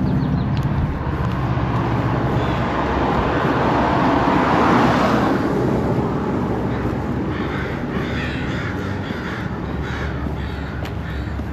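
Birds, likely crows, cawing in a run of short repeated calls in the second half, over low wind rumble on the microphone. A broad rush of noise swells and fades around the middle.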